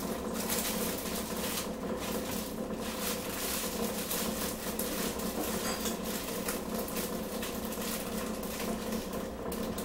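Rustling and light clatter of food and kitchenware being handled at a counter, over a steady hum.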